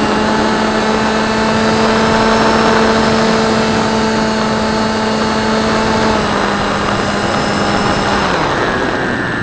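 The electric motor and pusher propeller of an AXN Floater Jet RC plane, heard from a camera on board in flight: a steady, loud drone with wind rushing over the microphone. The pitch steps down a little about six seconds in, then glides down near the end as the motor is throttled back.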